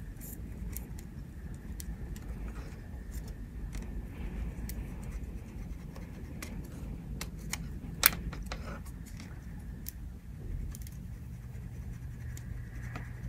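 Soldering work on a calculator circuit board: small scattered clicks and scrapes of the soldering iron tip and wires against the board and plastic case, with one sharper click about eight seconds in, over a low steady hum.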